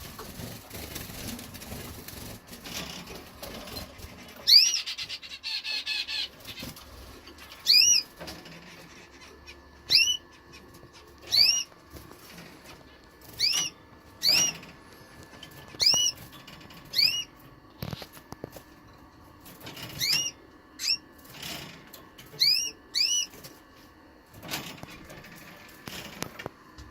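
Red-factor canary cock calling: a brief fast trill about five seconds in, then a string of short, clear, high chirps, each rising then falling in pitch, about one a second.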